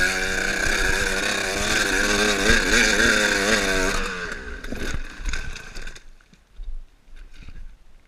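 Enduro dirt bike engine revving hard on a steep muddy climb, its pitch wavering up and down as the rear wheel loses and finds grip. About four seconds in it drops away and cuts out, followed by scattered knocks and scrapes as the bike goes down.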